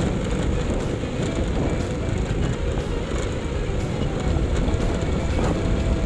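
Motorcycle running steadily as it is ridden along a dirt track, a continuous low rumble.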